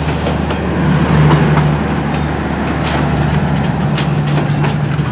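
Passenger train coaches rolling past, their wheels making irregular clicks and clacks over a steady low hum.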